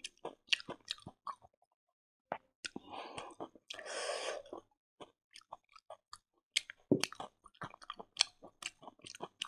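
Close-miked chewing of pork and rice: wet mouth clicks and smacks, scattered and irregular, with a brief pause about two seconds in. Two short hissing sounds come around the middle.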